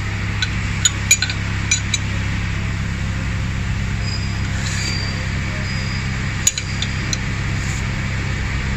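Metal hand tools clinking against the engine during a valve-clearance check on a Proton Satria's 4G13 engine: a quick run of sharp clinks in the first two seconds, then two more a little after the middle, over a steady low hum.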